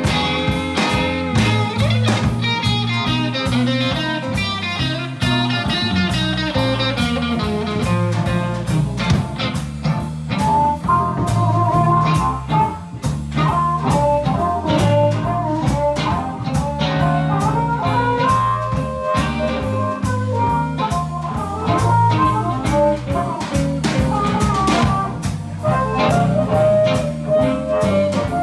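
Blues band playing live: electric guitars and electric bass over a drum kit keeping a steady beat.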